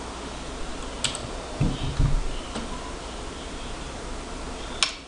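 Two sharp keyboard key presses, one about a second in and one near the end, over a steady low hum. A few low thumps, the loudest sounds, come around two seconds in.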